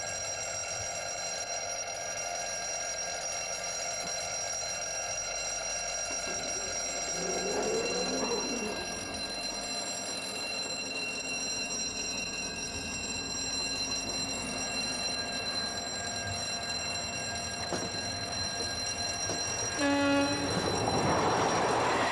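Train running with a steady whine, sounding a brief horn near the end, followed by a louder rush of noise as it goes by.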